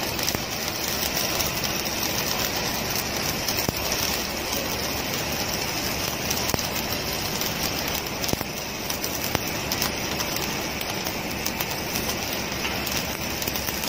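Stick welding (shielded metal arc) arc crackling and sizzling steadily as the electrode burns along a vertical seam on steel plate, without a break.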